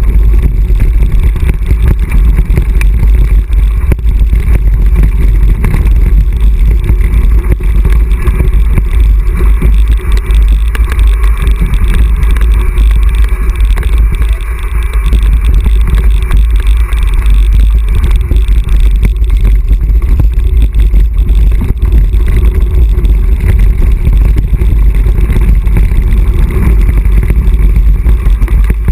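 Loud, constant wind rumble buffeting a mountain-bike action camera's microphone, mixed with the rattle and crunch of the bike's tyres and frame over a rough gravel and dirt trail on a fast descent. It eases briefly about halfway through.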